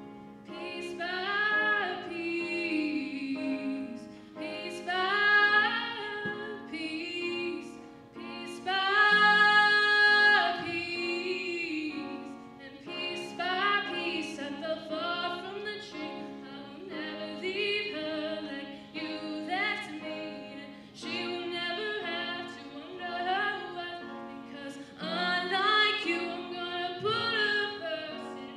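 A young woman singing solo while accompanying herself on an upright piano, her voice carrying the melody over sustained piano chords. About nine seconds in she holds one long, loud note.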